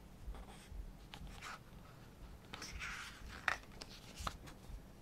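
Glossy photo-book pages being handled and turned: soft paper rustling, a longer swish about halfway through, then a couple of sharp paper clicks.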